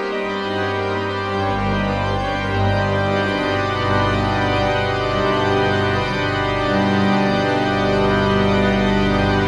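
Rosales pipe organ playing sustained chords, with low pedal notes entering just after the start and a deeper bass note joining about a second and a half in.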